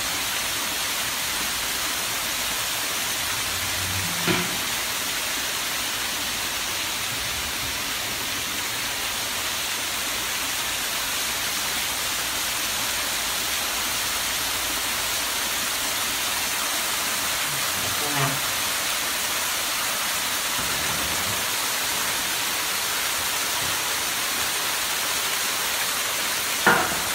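Small waterfall splashing down a stacked-rock wall, a steady rushing hiss of falling water. Three brief knocks stand out, the loudest near the end.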